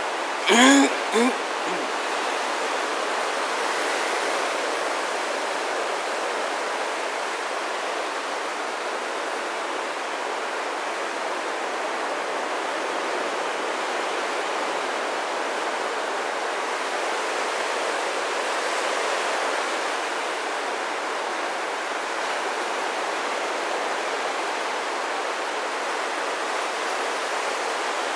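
Steady wash of ocean surf breaking on a beach, rising a little now and then. A brief vocal sound with a falling pitch comes about half a second in.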